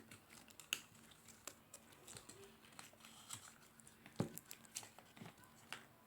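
Slime being handled and pressed, making a scatter of soft sticky clicks and crackling pops, the sharpest just before a second in and just after four seconds.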